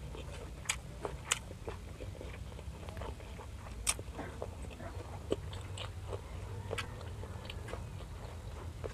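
Close-miked chewing of food with the mouth closed: a run of wet clicks and small crisp crunches, the loudest about four seconds in, over a low steady hum.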